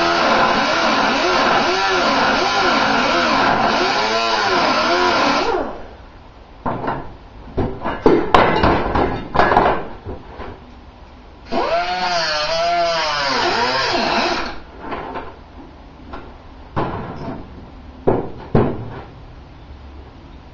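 Handheld power tool worked on car-body sheet metal in two bursts, a long one at the start and a shorter one about halfway, its pitch wavering up and down as it runs. Sharp metallic clicks and knocks come between and after the bursts.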